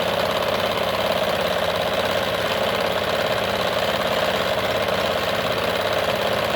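Kenmore model 92 sewing machine running flat out under full pedal, stitching a wide cam zigzag, its needle bar hammering in a fast, even rattle.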